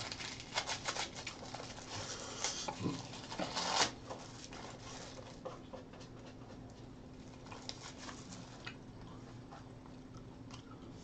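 Close-miked eating sounds: chewing and mouth clicks with small utensil or foil crackles, busiest in the first four seconds and sparser after, over a faint steady hum.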